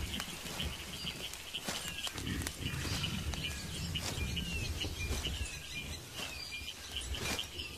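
Wet forest ambience: a high chirping call repeating about twice a second, over a low rumble and scattered short clicks.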